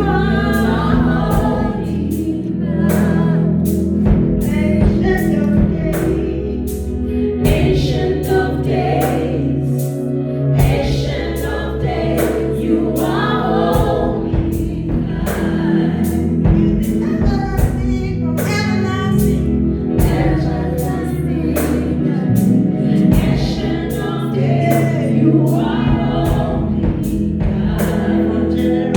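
Gospel worship song: a choir singing over a band with a steady bass line and a regular drum beat.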